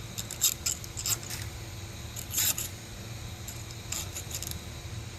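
Small clicks and scrapes of the 3D printer's extruder parts being handled as it is reassembled after loading filament: the pressure arm swung closed and the wing nut fitted. A few quick clicks in the first second and a half, a longer scrape about two and a half seconds in, and a cluster of clicks near the four-second mark, over a steady low hum.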